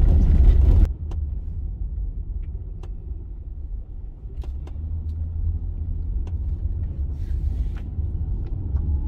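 Road noise heard inside a Honda minivan's cabin while driving. A loud, rough rumble on a dirt road cuts off suddenly about a second in and gives way to a quieter steady low rumble on pavement, with a few light clicks.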